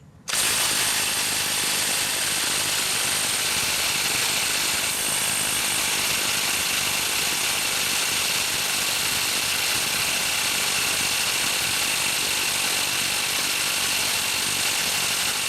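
Craftsman C3 19.2-volt cordless half-inch impact wrench hammering continuously on a crank pulley bolt, which does not break loose. It starts abruptly just after the beginning and runs at an even level.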